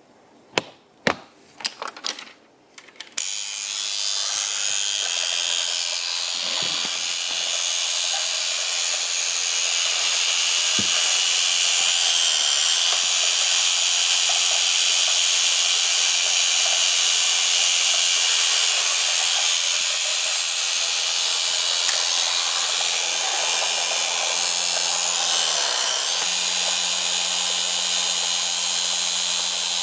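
A few sharp clicks, then the small electric motor and gears of a 1960s Yonezawa battery-operated tinplate Porsche 906 toy car start up about three seconds in and whir steadily and loudly as the car runs.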